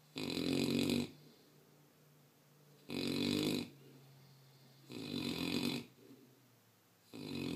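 An 11-month-old mastiff puppy snoring loudly in its sleep: four snores, each about a second long and about two seconds apart, with quieter breaths between.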